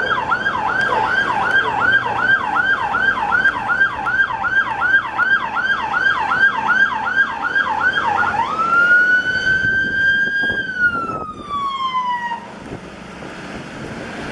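MAN fire engine's siren on a fast yelp, sweeping up and down about three times a second. About eight seconds in it switches to a single long wail that rises, holds and falls away, then cuts off, leaving the truck's engine and road noise.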